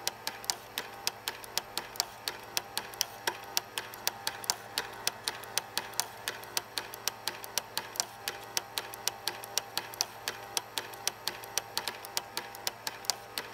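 Somikon NX-4294-675 Super 8 film scanner's frame-by-frame transport mechanism clicking steadily, about three to four clicks a second, over a steady motor hum as it advances and scans each frame in turn.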